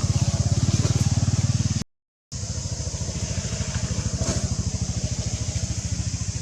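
A small engine idling with an even, rapid low pulsing. The sound cuts out completely for about half a second near two seconds in, then the engine carries on.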